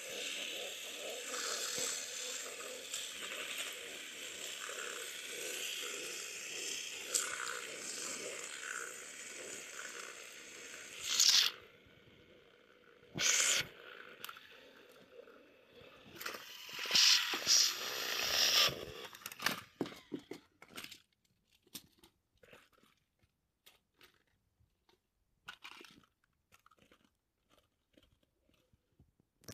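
Battery-powered toy train motors and plastic gears whirring with a crunchy rattle for about eleven seconds. Then come several loud clatters of plastic toy trains being handled on the track, trailing off into scattered small clicks.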